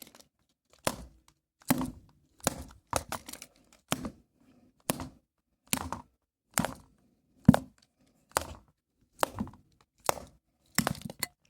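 A run of about a dozen sharp knocks, evenly spaced a little under a second apart.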